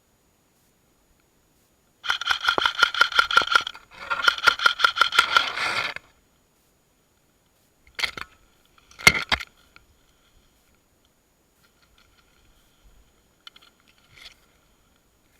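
Airsoft electric rifle firing two full-auto bursts of rapid shots, each about two seconds long, with the gearbox whine running through them. Two sharp knocks follow a few seconds later.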